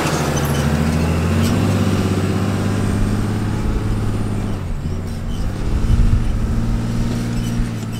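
Dually pickup truck's engine pulling a loaded truck camper through soft beach sand, running steadily under load. Its note dips briefly about four and a half seconds in, then swells louder around six seconds.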